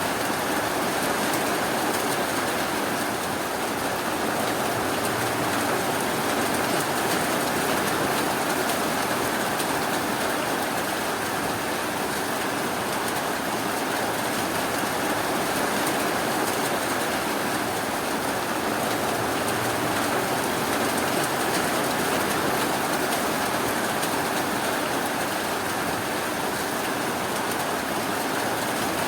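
Steady, continuous rainfall, an even hiss of rain with no thunder or separate drops standing out.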